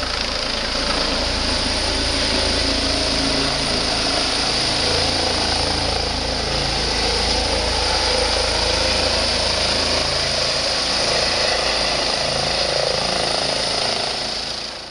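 Rescue helicopter flying low as it comes in to land: steady rotor and turbine noise with a low thrum and a thin high whine. It cuts off at the very end.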